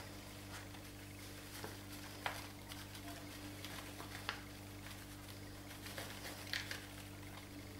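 Faint rustling and a few light clicks from a paper packet of flour being shaken and pressed onto a granite worktop, over a steady low hum.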